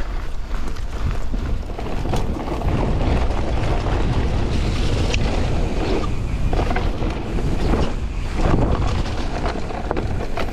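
Wind buffeting the microphone of a chest-mounted camera while a mountain bike, a 2022 Vitus Sommet 297, is ridden over a dirt trail, with tyre rumble and a few sharp knocks from the bike over rough ground.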